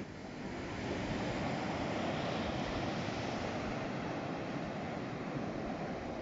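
Ocean surf washing onto the shore, a steady rush of noise, with wind on the microphone.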